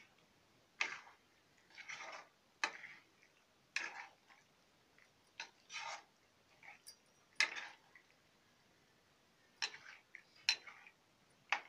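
Perforated metal spatula stirring mango pieces in liquid in a metal wok: irregular clinks and scrapes of metal on the pan, with short sloshing stirs in between.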